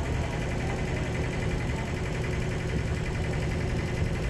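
Diesel engine of heavy construction machinery idling steadily, a continuous low rumble.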